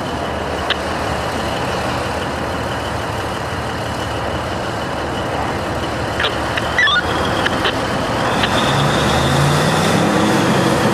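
Heavy vehicle engine running steadily, with a steady high-pitched whine and a few short clicks. A deeper engine note comes in near the end.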